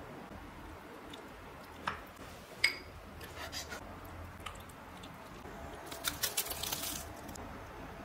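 Light clinks and taps of tableware: one sharp, briefly ringing clink about two and a half seconds in, a few small taps, and a quick run of clicks around six seconds in.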